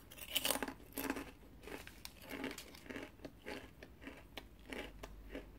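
Crunchy cookie being bitten and chewed close to the microphone: irregular crisp crunches, the loudest in the first second or so, then softer chewing crackles.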